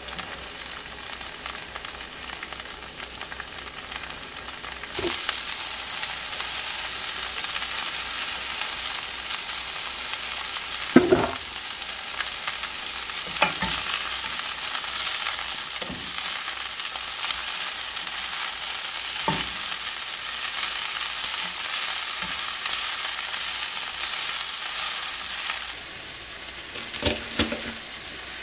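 Broccoli florets sizzling in a hot pan, the sizzle growing louder about five seconds in, with a few knocks and scrapes of a wooden spatula stirring them. Near the end the sizzle stops and a few sharp knocks follow on a wooden cutting board.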